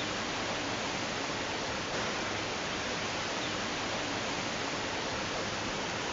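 Waterfall falling, a steady, even rush of water.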